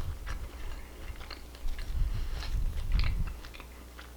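A person chewing food close to the microphone, with irregular wet clicks and crunches from the mouth.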